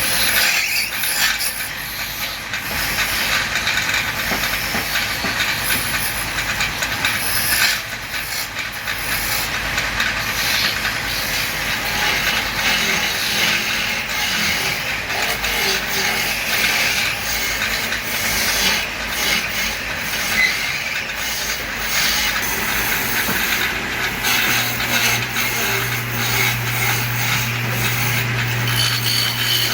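Wood lathe turning a piece of wood while a hand-held turning tool scrapes and cuts it, giving a continuous hissing scrape. A steady low hum comes in about three-quarters of the way through.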